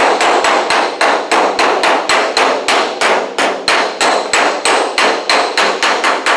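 A waffle-faced shrinking hammer strikes the bare steel roof panel of a 1964 Volkswagen Beetle against a dolly held underneath, in a rapid, even rhythm of about four blows a second with a light metallic ring. This is hammer-on-dolly work knocking down and shrinking the stretched high spots in the panel.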